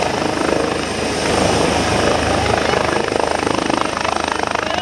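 Helicopter with a shrouded fenestron tail rotor hovering low and settling onto a helipad: loud, steady rotor beat and turbine noise.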